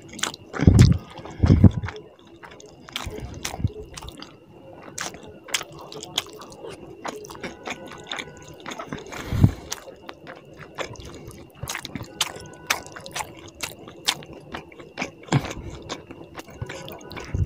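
Close-miked wet, sticky squishing and clicking of bare fingers kneading rice into tilapia fish curry on a plate, with close chewing and lip smacks. Several dull thumps stand out, the two loudest about a second in.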